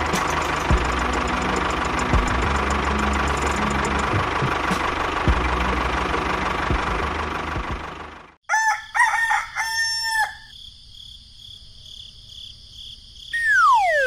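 A small engine runs with a dense, rattling noise for about eight seconds, then cuts off abruptly. A rooster then crows in short calls, and near the end gives a long note that falls steeply in pitch.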